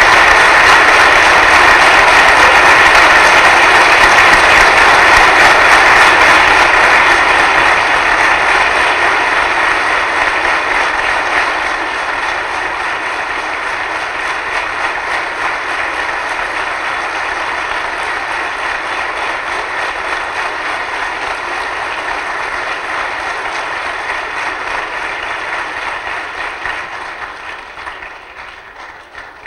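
A large congregation applauding. The clapping is loud at first, eases off after about seven seconds, holds steady, and dies away near the end.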